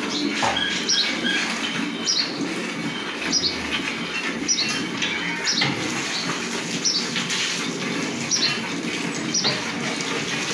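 A small bird chirping again and again, short high notes that fall in pitch, about once a second, over a steady low background hum.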